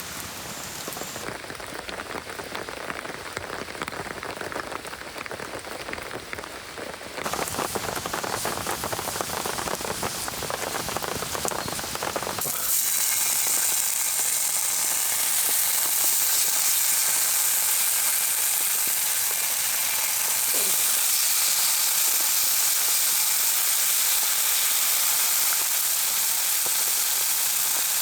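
Rain pattering steadily. About halfway through it gives way to a loud, steady sizzle of food frying in a pan.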